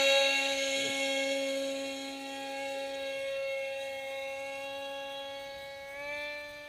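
Electric motor and propeller of a small foam RC jet model whining steadily in flight, fading as the plane flies away. About six seconds in, the pitch steps up slightly with a brief swell as the throttle is opened a little.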